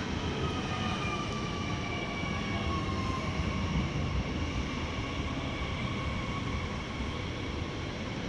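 Driverless Paris Métro train running: a steady rumble with a thin electric motor whine that falls slowly in pitch over the first few seconds, as the train slows.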